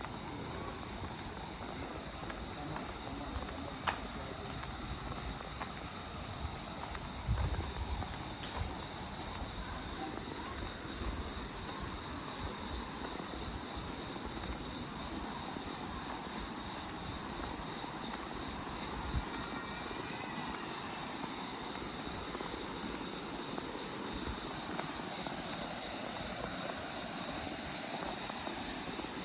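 A steady, high insect chorus with a fast pulsing texture, over a low rumble of wind on the microphone, with a couple of sharp clicks.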